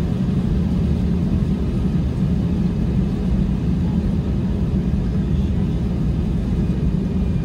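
Steady low rumble inside the cabin of an Airbus A320-200 taxiing, its engines at low taxi power.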